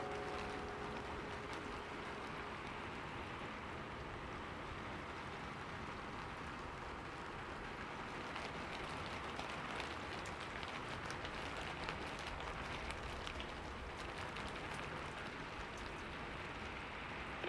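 Wood fire crackling: a steady hiss scattered with many small, irregular pops and snaps.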